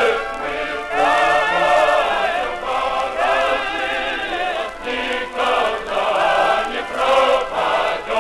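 Choir singing a Soviet patriotic song, with wavering held notes, in an old recording.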